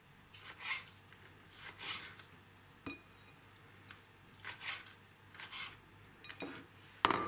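Kitchen knife cutting through soft, marinated Korean-style carrot strands onto a wooden cutting board: a series of short, irregular cuts, with a louder clatter near the end.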